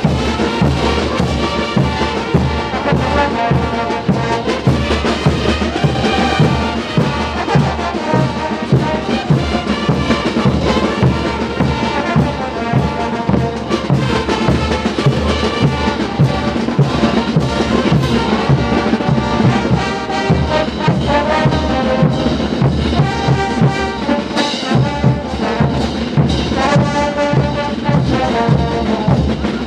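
Brass band playing festive dance music: trumpets, trombones and sousaphones carrying the tune over a steady pounding of bass drums.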